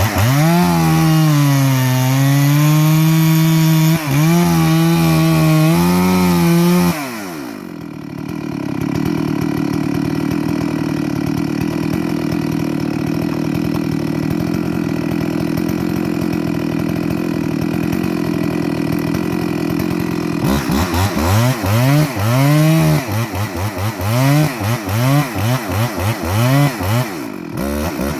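Chainsaw cutting wood at full throttle, its pitch sagging and recovering under load, then dropping to idle about seven seconds in. Later the saw is revved in a quick series of short bursts before falling back to idle.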